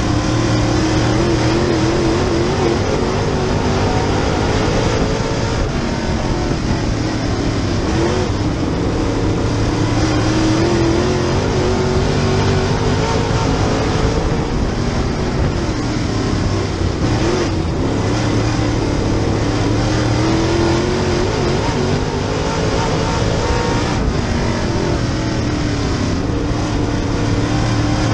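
Super late model race car's V8 engine heard from inside the cockpit, its pitch rising and falling in a repeating cycle every several seconds as it laps the track, over constant wind and mechanical noise.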